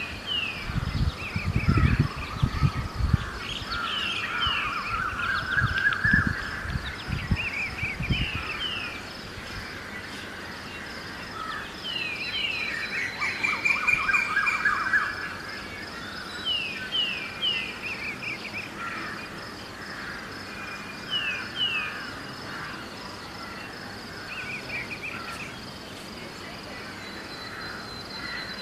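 Birds chirping, repeating short phrases of quick falling notes again and again. Wind gusts buffet the microphone for the first eight seconds or so, under a steady thin high drone.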